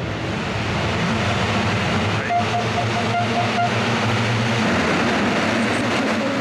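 A full gate of MX2 motocross bikes revving hard together behind the start gate, then launching off the line in a massed rising engine noise near the end.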